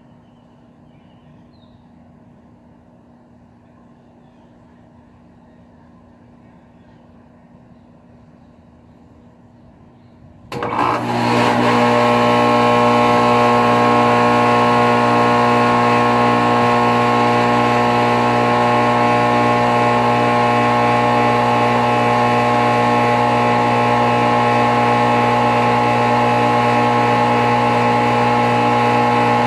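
A 2008 NuTone central air conditioner condenser with a Copeland scroll compressor kicks on suddenly about ten seconds in, after a faint hum, then runs with a steady, unbelievably loud hum. The unit is vibrating badly enough to shake the ground.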